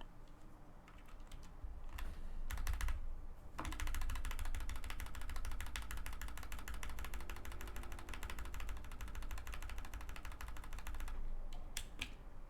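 Fast typing on a mechanical keyboard, a dense run of key clicks and bottom-outs. A few strokes come about two seconds in, the steady run starts at about three and a half seconds and stops about a second before the end, followed by a couple of single clicks.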